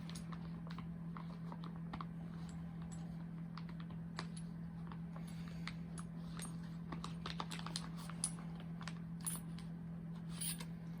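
Scattered light clicks and clinks of small metal lock-picking tools being handled and sorted while searching for a plug follower, over a steady low hum.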